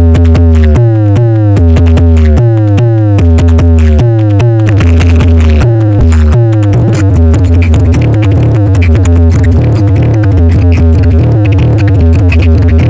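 Loud electronic DJ music played through a speaker-box sound system for a sound check. Heavy deep bass pulses run under repeated falling synth glides; the texture thickens about four to five seconds in.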